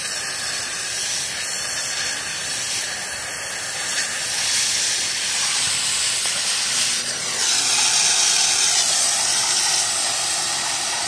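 Oxy-fuel cutting torch hissing steadily as it cuts into steel plate, getting louder about four seconds in and again a little past seven seconds.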